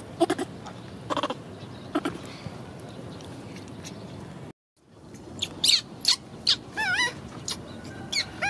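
Baby monkey calling: a few short calls, then after a sudden break a string of thin, high squeaks that waver up and down in pitch.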